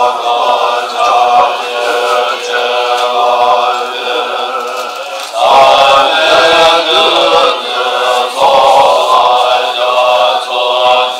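Male voices chanting Tibetan Buddhist prayers in a steady, sung recitation, with a short break for breath about five seconds in.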